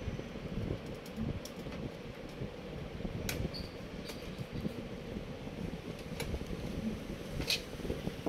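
Steady whirring of a computer cooling fan with a faint constant hum. A few sharp light clicks, about three seconds in, again about a second later and near the end, come from handling the hardware.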